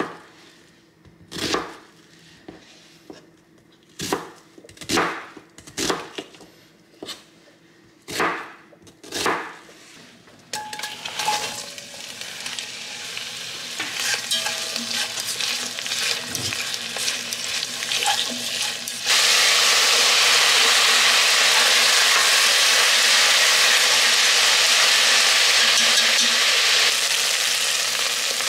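A chef's knife chopping an onion on a plastic cutting board, in a handful of separate knocks. Then diced onion sizzling as it fries in oil in a pot, stirred with wooden chopsticks; the sizzle gets much louder and steadier about two-thirds of the way in.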